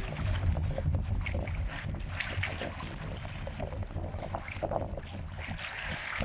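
Beach ambience by moored fishing boats: a low, fluctuating rumble with scattered small knocks and splashes.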